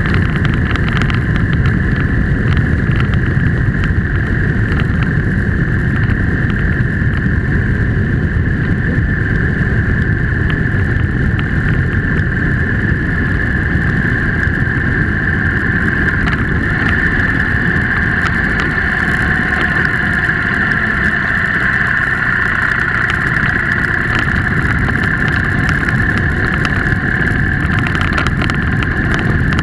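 Steady engine drone and wind rush from a motorcycle riding along a road at a constant pace, picked up by a camera mounted on the bike, with a steady high whine over the top.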